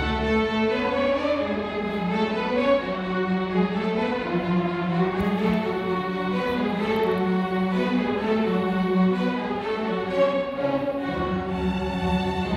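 School string orchestra of violins, violas, cellos and double basses playing a concerto in D major, the bowed notes moving in steady melodic lines. The deepest bass drops away after the first second and comes back in about a second before the end.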